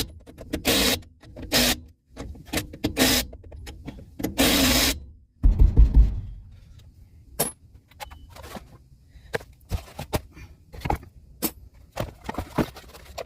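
Tools at work on a trailer wheel while the tire change is finished: a string of short, harsh tool noises, then a heavy low thump about five and a half seconds in, followed by scattered light clicks.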